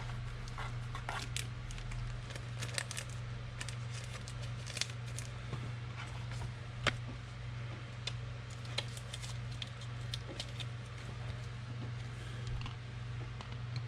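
Trading cards and pack wrappers being handled: scattered light clicks and rustles as cards are slid and flipped, one slightly louder click about halfway through, over a steady low hum.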